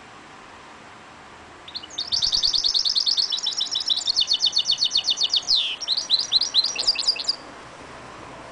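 A caged mule (goldfinch × canary hybrid) singing one phrase of about five and a half seconds, beginning about two seconds in. The phrase is a fast run of high trilled notes, a quick falling sweep, then a few separate notes.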